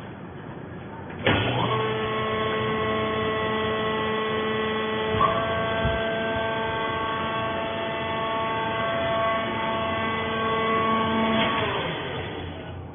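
A palm fiber baler's hydraulic pump and motor starting abruptly about a second in and running with a steady whining hum for about ten seconds, with a short click midway, then winding down near the end.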